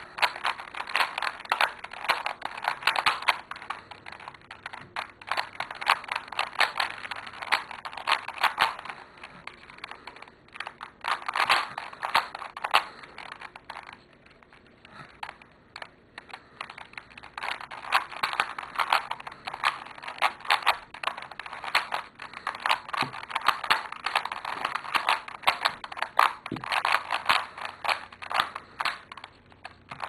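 A new 3x3 Studio speedcube, not yet broken in, being turned rapidly by hand: fast runs of plastic clicking and clacking, with a pause of about two seconds midway.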